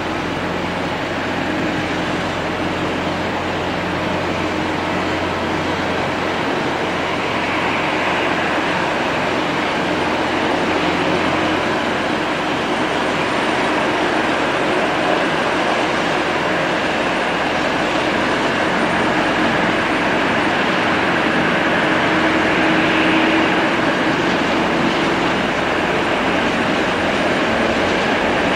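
Boeing 777-300ER's GE90 turbofan engines heard from a distance during landing and rollout: a steady jet rush that slowly grows louder, with brighter swells around eight seconds in and again about two-thirds of the way through.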